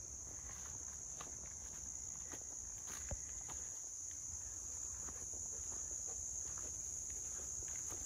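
Steady high-pitched insect chorus, crickets or cicadas, with irregular footsteps crunching on the path underneath.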